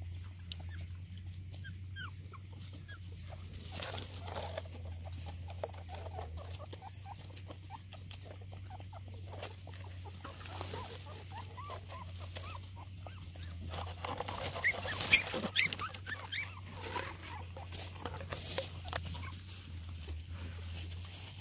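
Young puppies squeaking and whimpering in short, high cries while they nurse, with the mother dog eating from a plastic bowl. A few sharp clicks and knocks come a little past the middle, over a steady low hum.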